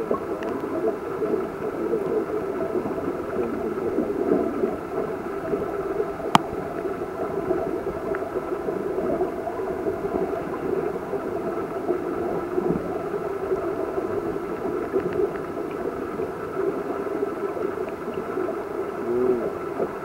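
Muffled, churning water noise picked up by a submerged camera, steady throughout with a faint hum, and a single sharp click about six seconds in.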